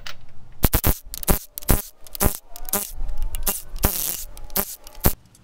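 Cordless impact wrench working the cylinder-head bolts on a Ford 351 Windsor V8 with GT40 heads, with a run of sharp metal clacks and a steadier burst of the tool, its motor pitch rising, about three seconds in.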